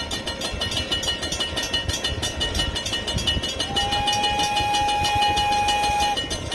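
Grade-crossing bell ringing steadily over the low rumble of a slow-moving train, and about three and a half seconds in the train's horn sounds one long blast of about two and a half seconds.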